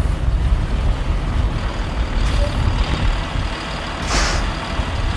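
Transit bus rumbling as it pulls up and stops, with a short, loud hiss of released air from its air brakes about four seconds in.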